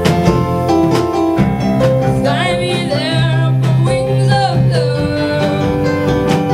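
A band playing a country-style song on acoustic instruments: plucked and strummed strings under a wavering melody line that comes in about two seconds in.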